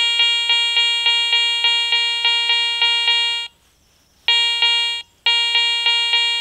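Garrett ACE 400i metal detector with a Cors Cannon search coil giving its target tone for a 2 Reichsmark silver coin in an air test: a steady beep pulsing about three times a second. It breaks off about three and a half seconds in, then comes back in two shorter stretches as the coin moves in and out of range.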